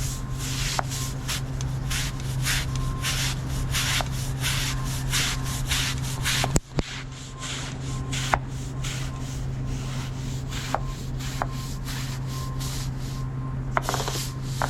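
Stiff brush scrubbing brick in quick repeated strokes, over a steady low hum. The strokes break off briefly about halfway through.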